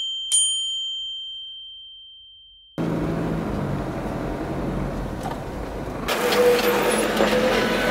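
A bell-like chime sound effect, a clear high ding struck just after the start on the ringing of an earlier strike, fading out over about two and a half seconds. Then the steady drone of a car's engine and road noise from inside the cabin comes back, growing louder about six seconds in.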